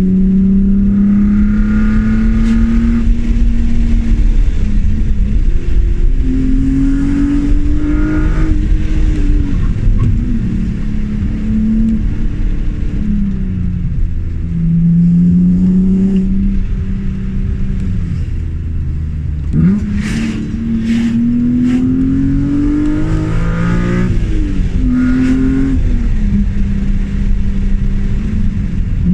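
BMW E36 M3's straight-six engine pulling through the gears, its pitch climbing under throttle and dropping back at each shift, several times over. A few brief sharp clicks come about two-thirds through.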